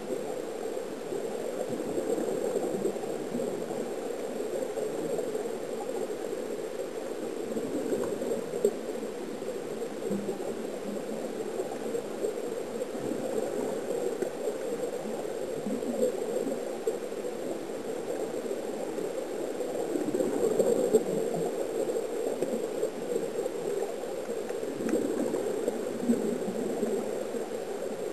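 Steady bubbling and gurgling heard underwater: air streaming out of the sea-walking helmets and rising as bubbles. A few faint knocks break in now and then.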